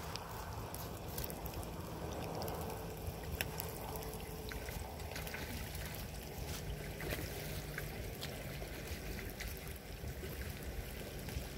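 Steady, fairly quiet outdoor noise of wind and river water at the water's edge, with a faint low hum through the first part and scattered faint clicks.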